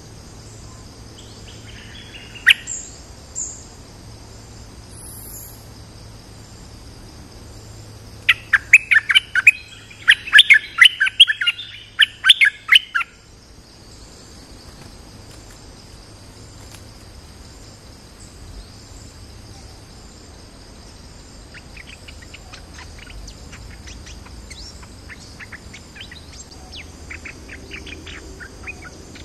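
Bulbul calling: a few chirps, then a loud burst of rapid chattering notes lasting about five seconds, and softer scattered chirps near the end. A steady high insect drone runs underneath.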